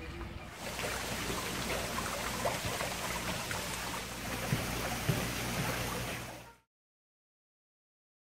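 Water running and splashing in a koi pond, a steady rushing that begins about half a second in and cuts off suddenly about six and a half seconds in.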